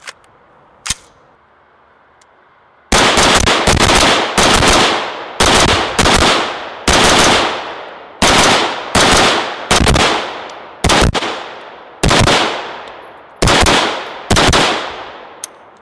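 AR-15 rifle firing steel-case rounds in semi-automatic, a quick irregular string of loud shots each followed by a ringing echo, about one every half second to second. The string ends with a faint click as the magazine runs empty without locking the bolt back.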